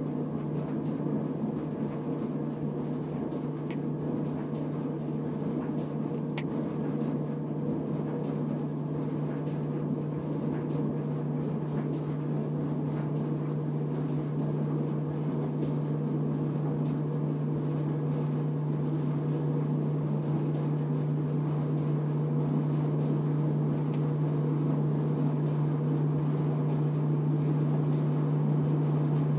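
Maytag clothes dryer running on high heat, its drum turning with a steady low hum and rumble that slowly grows louder; the noise comes from the drum support rollers, which the owner says are broken.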